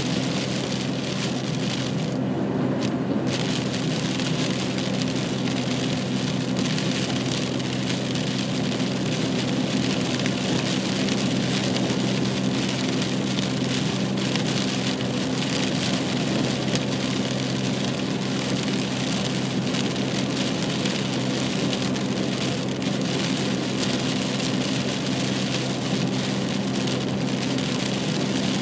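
A car driving in rain, heard from inside the cabin: a steady engine and road drone under a dense hiss and patter of rain on the car. The rain hiss briefly drops out about two seconds in.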